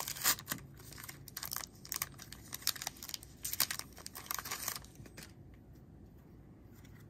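Plastic foil wrapper of a trading-card pack being torn open and crinkled in the hands, an irregular crackling that stops about five seconds in.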